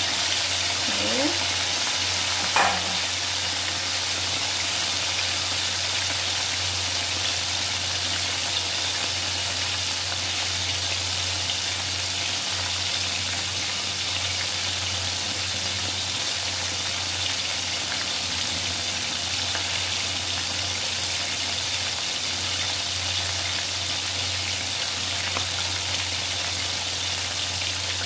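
Coated chicken pieces deep-frying in hot oil in an aluminium wok: a steady sizzle. One sharp tap about two and a half seconds in.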